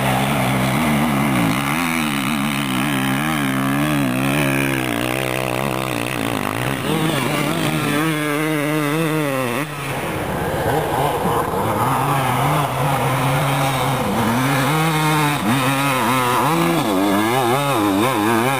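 Dirt bike engine revving up and down under load as it climbs a steep dirt hill, the pitch rising and falling again and again with the throttle. Near the end the climbing bike is a Suzuki RM250 two-stroke.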